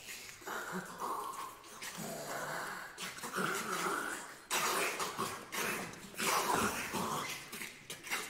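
Six unaccompanied voices in a contemporary vocal piece, making noisy, hissing and rasping vocal sounds rather than sung pitches. A sudden loud rush of noise comes about halfway through.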